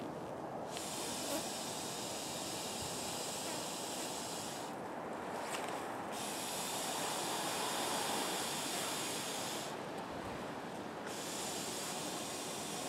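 Inflatable Therm-a-Rest NeoAir sleeping mat being blown up by mouth: long breathy exhales into the valve, each about four seconds, broken by short pauses of about a second to draw breath.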